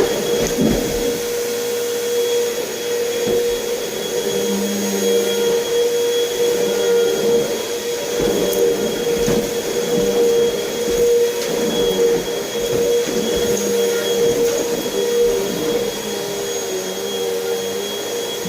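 Vacuum cleaner running steadily. Its motor holds a constant pitch, with a high whine above the hum.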